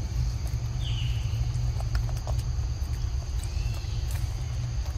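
Outdoor ambience in which a steady low rumble is the loudest sound, under a steady high hum. Two short faint chirps come about a second in and near the end, with a few soft clicks between them.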